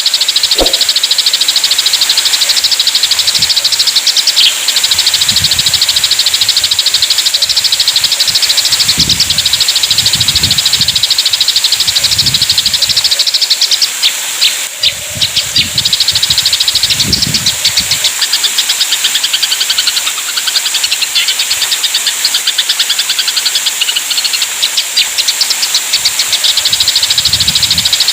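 Eurasian tree sparrows chattering in a fast, unbroken stream of harsh chirps, the agitated calling of sparrows fighting.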